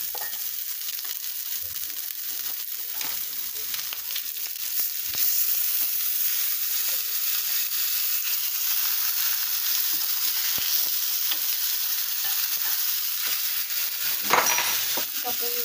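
Mackerel frying without oil in a stainless steel Saladmaster pan: a steady high sizzle with faint crackles. A brief louder handling noise near the end.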